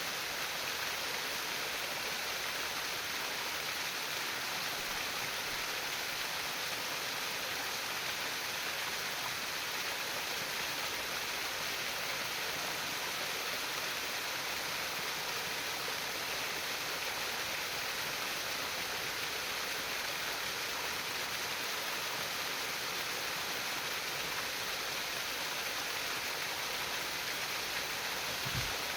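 Steady babbling of a flowing stream, water trickling and splashing without pause. A single soft low bump sounds near the end.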